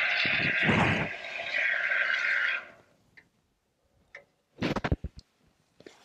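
Aerosol can of expanding spray foam hissing steadily as foam is squirted into a van's sliding-door cavity, cutting off suddenly under three seconds in. A quick cluster of knocks follows about five seconds in.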